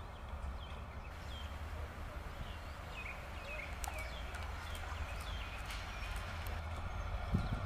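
Low, steady rumble of approaching twin WDG4 (EMD GT46MAC) diesel locomotives, faint with distance, with small birds chirping over it.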